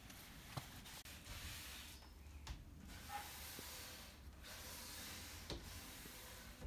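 Paint edging pad wiped along a wooden cabinet face frame: a faint swishing hiss in four strokes of about a second each, with brief pauses and a few light taps between.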